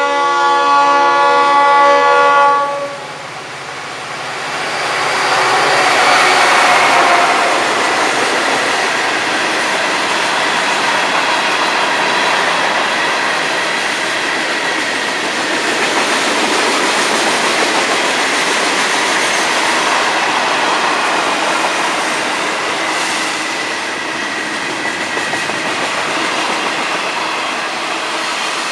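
A diesel freight train's horn sounds a chord for about the first three seconds at a grade crossing. Then the locomotives pass and the long freight train rolls by with a steady noise of wheels on rail.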